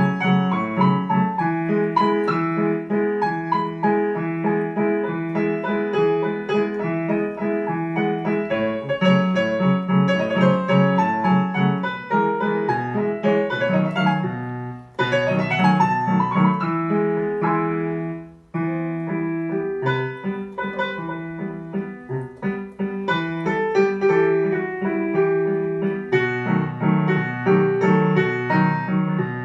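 Digital piano played with both hands: a melody over a repeating low accompaniment, broken by two brief pauses near the middle.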